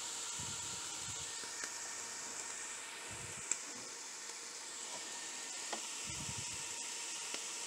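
Steady hiss from a skillet cooking on a propane camp stove, with a sharp click about three and a half seconds in and a fainter one later.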